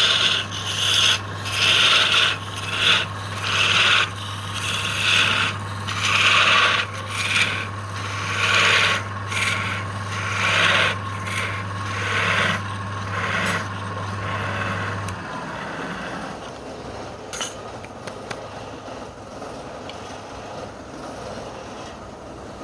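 Wood lathe running with a steady hum while a tool or abrasive rubs against the spinning workpiece in rhythmic strokes, about one a second. The hum and the strokes stop about fifteen seconds in.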